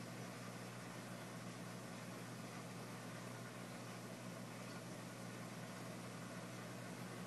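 Steady low hum with an even hiss from the reef aquarium's running equipment.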